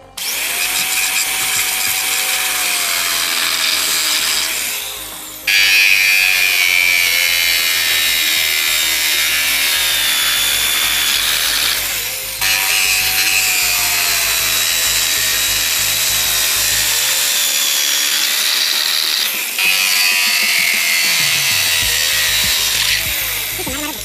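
Electric drill running a hole saw through a plastic bucket lid, cutting hole after hole. The motor's whine slowly falls in pitch during each cut, and the sound breaks off and starts again abruptly about every six or seven seconds.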